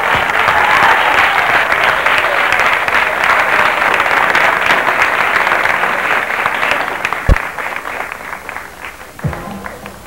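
Audience applauding, a dense steady clapping that thins out over the last few seconds. A single sharp low thump comes about seven seconds in.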